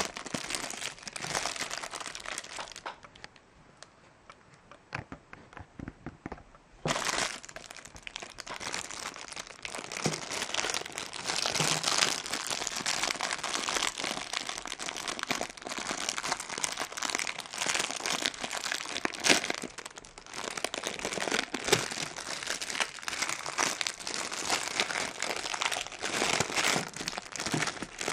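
Thin clear plastic bag crinkling as hands handle and open it. It goes quiet for a few seconds about three seconds in, then crinkles again steadily from about seven seconds on.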